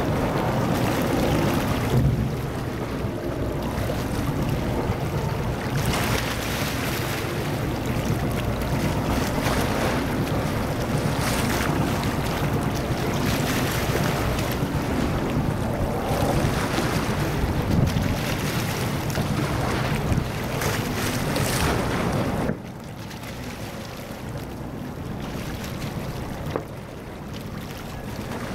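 Wind buffeting the microphone: a loud, uneven rushing noise that drops off suddenly about 22 seconds in.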